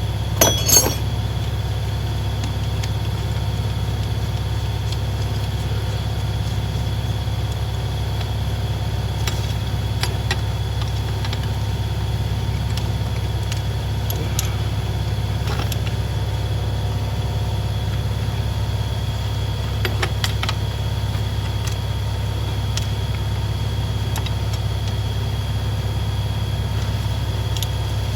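A steady low rumble throughout, with scattered light metallic clinks and clicks of hand tools on engine parts: a few just after the start and single ones every few seconds after that.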